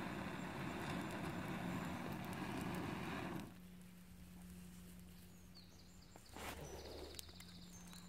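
Long, steady breath blown into a tinder bundle of dry bracken and birch bark to coax a smouldering ember into flame: an airy rush that stops abruptly about three and a half seconds in. A shorter rush of air follows about six seconds in, as the bundle catches.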